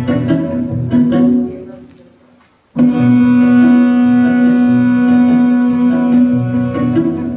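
Instrumental music. The opening phrase fades almost to silence, and then, nearly three seconds in, a long held low note begins suddenly over a pulsing bass.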